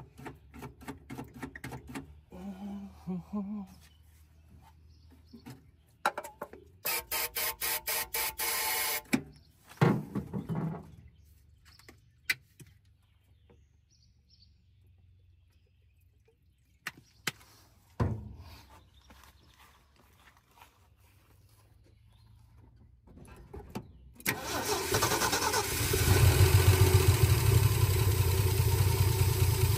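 The inline-six of a 1976 Ford F-150 turned over on its starter without firing: a short crank of about two seconds, then near the end a longer, louder crank. It is being cranked to check that the fuel pump is delivering fuel. A few separate knocks in between.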